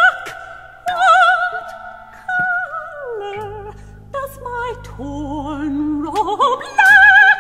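Electronic art music: a soprano singing held notes with wide vibrato over synthesized tape sounds, the line falling about halfway through and climbing again near the end. A low electronic drone comes in about three and a half seconds in and stops about a second before the end.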